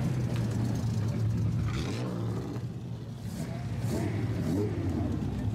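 Low, steady rumble of a lowered classic Japanese car's engine and exhaust as it rolls past slowly. The sound dips briefly a few seconds in, then picks back up.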